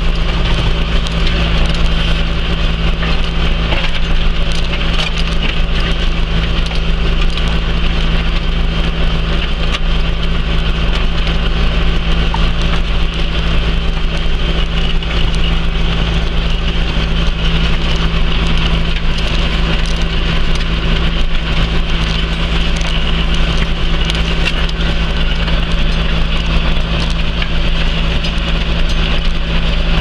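John Deere tractor's diesel engine running steadily under load while pulling a Kverneland four-furrow reversible plough.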